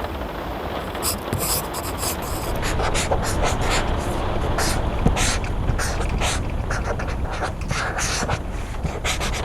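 Pencil writing on paper: quick, irregular scratching strokes, a few a second, over steady rain.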